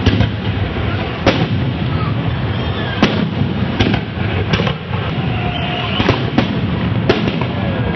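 Fireworks going off in a series of sharp bangs at uneven spacing, roughly one a second, over the murmur of a crowd's voices.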